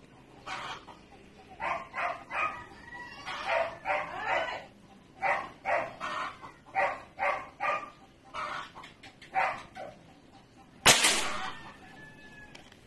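Short repeated animal calls, about two a second, through the first ten seconds, then a single shot from a .22 PCP air rifle with a brief ring after it, the loudest sound by far.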